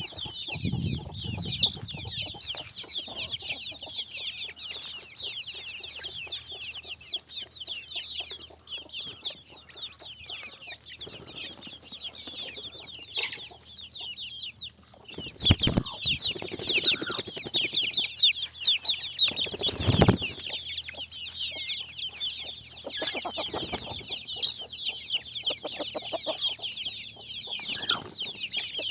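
Chickens clucking, over a constant stream of short high-pitched calls. There are two louder sudden noises, about halfway through and again a few seconds later.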